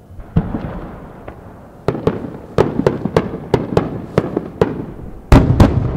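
Large 12-inch (300 mm) aerial firework shells fired in pairs, going off as a run of sharp bangs. There is one bang early, then several a second from about two seconds in, each trailing off. Two loudest booms follow close together near the end.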